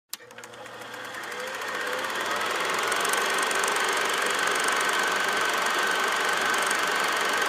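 Film projector running: a click, then a rapid, steady mechanical clatter with a thin whir, fading in over the first two seconds or so.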